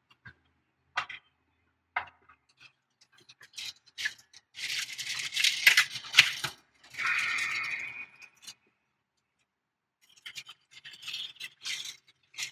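Plastic packaging crinkling and rustling as a sheet of adhesive foam is handled and pulled from its bag, loudest in the middle, after two sharp clicks about a second apart near the start.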